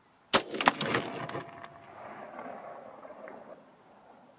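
A single shot from an AR-15 rifle in .223, about a third of a second in, followed by echoes that roll on and fade over the next few seconds.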